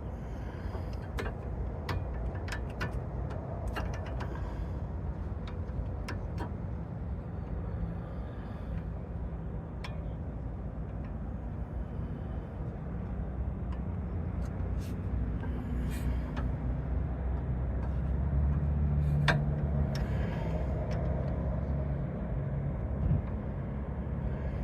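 Scattered metal clicks and knocks of a sway bar end link and tools being worked into place, over a steady low rumble that swells for a few seconds near the end.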